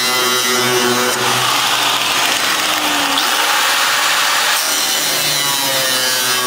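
Angle grinder with a silicon carbide masonry cut-off disc cutting through the steel floor of a 1964 Ford F100 pickup bed. The sound changes about a second in, turning noisier and losing its motor whine, then returns to it about four and a half seconds in.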